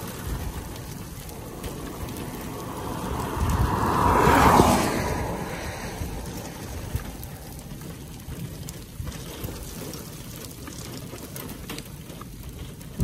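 Wind buffeting the microphone in gusts, with a louder rush that swells about four seconds in and fades.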